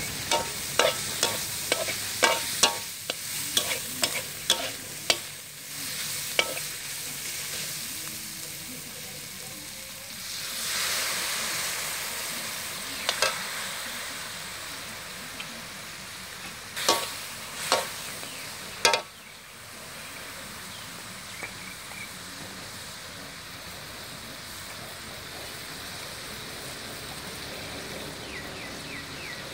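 Diced pork frying in a large steel wok, sizzling, while a metal spatula scrapes and clanks against the pan in quick strokes for the first several seconds. The sizzle surges louder about ten seconds in, a few more spatula scrapes follow, and then it settles to a steady low sizzle.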